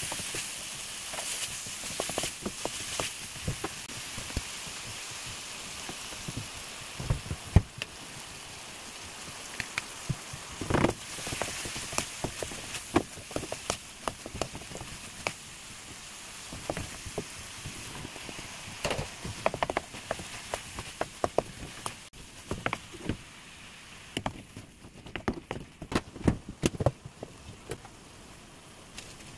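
Squid stir-frying in a wok with red pepper paste: a steady sizzle, with a wooden spoon clacking and scraping against the pan many times. The sizzle thins out near the end.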